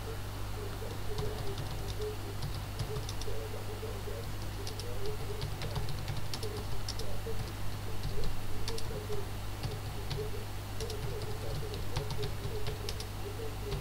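Typing on a computer keyboard: irregular keystroke clicks, a few at a time with short pauses, over a steady low hum.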